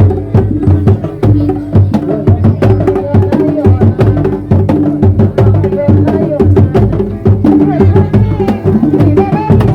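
Kuda lumping ensemble music: rapid hand-drum strokes over repeating gong-chime tones, with a wavering melody line above.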